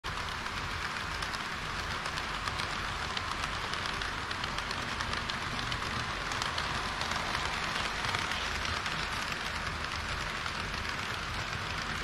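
HO-scale model trains running past on the layout: a steady rolling hiss of small metal wheels on rails, laced with fine rapid clicking. The trains are a red KiHa 40 diesel railcar and an EH200 electric locomotive with a long rake of green tank wagons.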